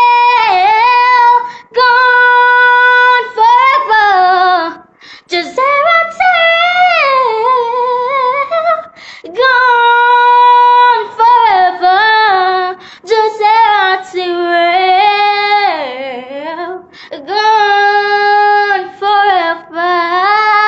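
A young girl singing solo and unaccompanied, in long held notes and sliding melodic runs, phrase after phrase with short breaks between them.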